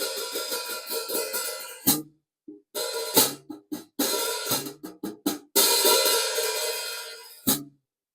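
Zildjian A Custom cymbals played in short drum-kit phrases: a steady hi-hat-style pulse, then accented crash hits with a low kick-drum thump, stop-start strokes cut off short, a longer ringing wash, and a last accented hit that is choked sharply.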